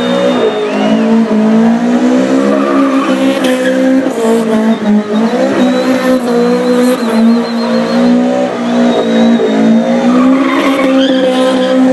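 A pickup truck's engine held at high revs during a burnout, its rear tyres spinning and squealing on concrete as it circles. The revs dip briefly about five seconds in and again near ten seconds, then climb back.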